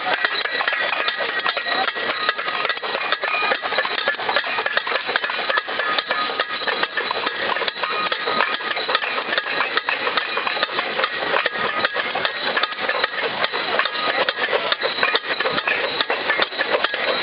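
A group of people making noise together by banging and striking objects: a dense, unbroken clatter of many knocks, with a few steady high tones ringing above it.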